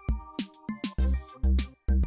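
Background music with a heavy bass-drum beat and short pitched notes.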